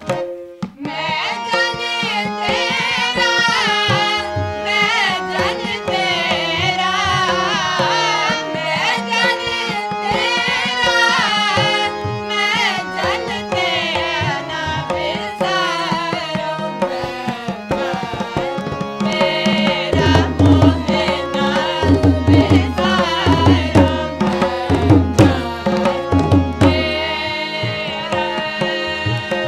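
Sikh kirtan: voices singing with two Rina harmoniums and tabla. About two-thirds of the way through, the tabla's deep bass-drum strokes come in strongly for several seconds.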